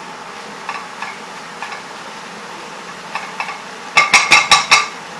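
Chopped vegetables and mushrooms sizzling in a frying pan as they are stirred, with a few light knocks of the utensil. Near the end comes a quick run of about five loud ringing knocks, a utensil rapped against the pan.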